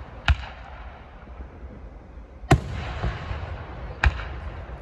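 Aerial firework shells bursting: three sharp bangs about a third of a second, two and a half and four seconds in. The middle bang is the loudest, and each rings on briefly in echo.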